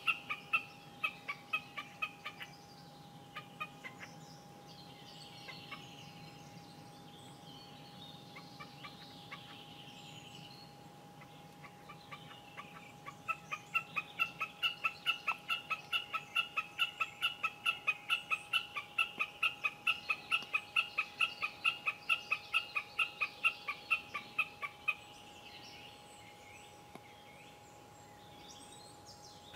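A bird calling in long, fast runs of short, clear, even notes, about four a second. One run fades out in the first few seconds, and another lasts about twelve seconds from about a third of the way in. Faint small-bird chirps can be heard between the runs.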